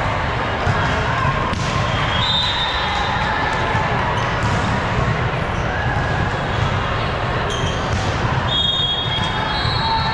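Volleyball rally on an indoor hardwood court: sharp ball hits echo in a large gym over a steady rumble of hall noise and voices, with a few brief high squeaks about two seconds in and again near the end.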